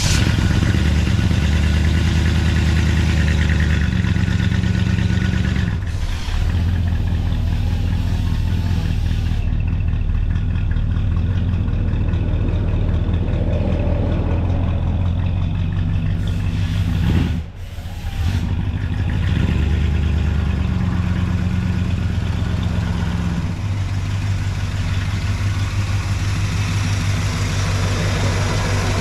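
1967 Chevrolet Impala's engine running at idle. Its speed steps up and down a few times, and there is one brief drop about seventeen seconds in.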